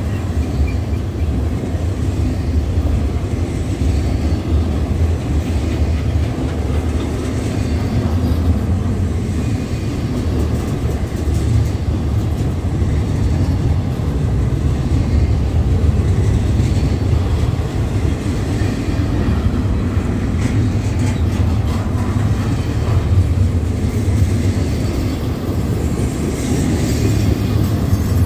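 Intermodal freight train passing at close range: a steady, loud rumble of steel wheels on rail with the clickety-clack of the cars, its brakes applied on the descent.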